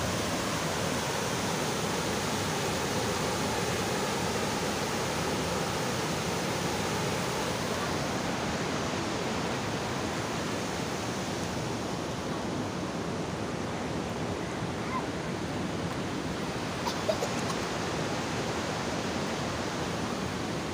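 Steady rushing roar of water pouring through the gates of a canal head regulator and falling into the deep channel below.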